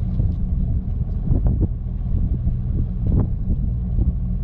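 Fishing boat's engine running steadily, a low hum, with wind buffeting the microphone. A couple of short knocks come about a second and a half and three seconds in.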